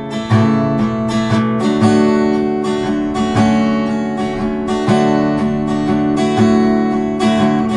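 Acoustic guitar strummed in a steady rhythm, its chords ringing on between strokes, playing an instrumental passage between sung lines.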